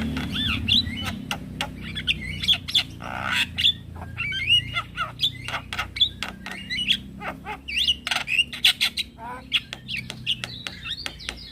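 Male Javan myna (jalak kebo) singing: a rapid run of sharp clicks and chatter mixed with short rising and falling whistles.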